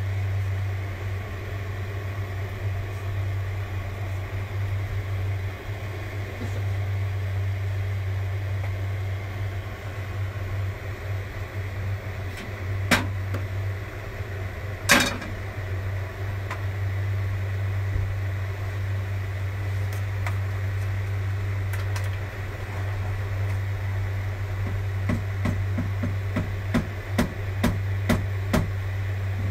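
Steady low machine hum, with two sharp knocks about two seconds apart midway as a frying pan is lifted and set back down on a gas stove's burner grate. A run of light ticks follows near the end.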